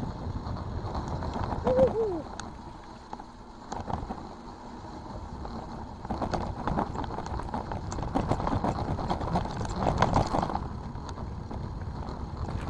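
Mountain bike being ridden along a rough dirt trail: wind rumble on the microphone and the bike rattling and knocking over the ground, with the clatter heaviest in the second half. A brief pitched squeak about two seconds in.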